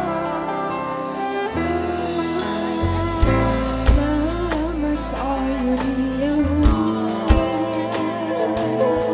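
Live band music: a woman singing into a microphone over violin and keyboard, with bass and drums coming in about three seconds in.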